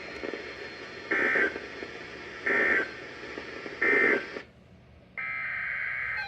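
NOAA Weather Radio broadcast with steady hiss: three short, loud bursts of EAS/SAME data tones about 1.3 s apart, the end-of-message code closing a flash flood warning. After a brief drop nearly to silence, a longer data burst begins, the header of the next alert.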